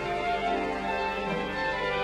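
Background music: a slow, relaxing orchestral piece with strings.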